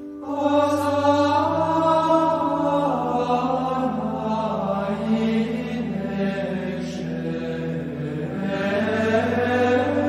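Slow chant-like vocal music: long held sung notes that shift slowly in pitch over a steady low drone, a new phrase swelling in just after the start.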